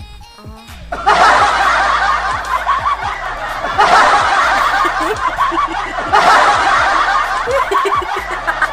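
Crowd laughter from many people at once, a canned laugh-track effect, starting suddenly about a second in and coming in waves.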